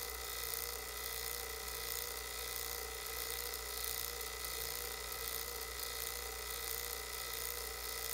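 HVAC vacuum pump running steadily as it pulls a deep vacuum on a sealed jar of water, deep enough that the water boils off and starts to freeze.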